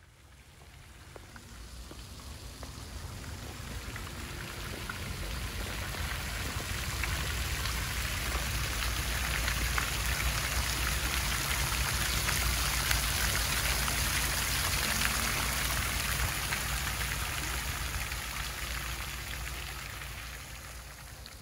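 Fountain jet falling back into a round pool: a steady splashing patter of water, growing louder toward the middle and fading toward the end.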